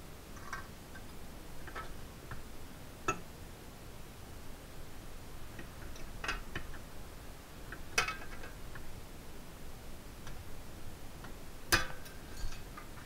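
Bench-mounted lever shear biting through sheet metal, stroke by stroke: about six sharp clicks and snaps spaced a second or more apart. The loudest comes near the end.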